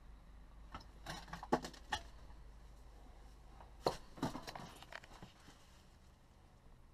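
Scattered knocks, clicks and light clatter of things being handled, in two brief clusters about one to two seconds in and about four seconds in.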